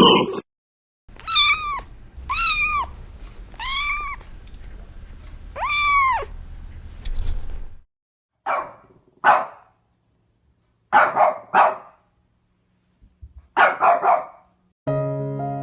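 A cat meowing four times, each meow rising and then falling in pitch. Then three pairs of short barks from a dog.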